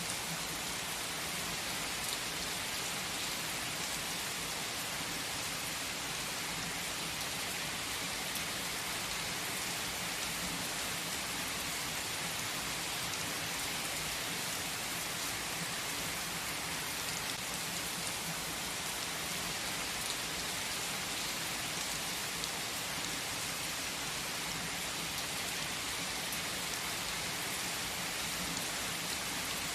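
Steady rainfall, an even hiss that holds its level throughout, with scattered drop ticks.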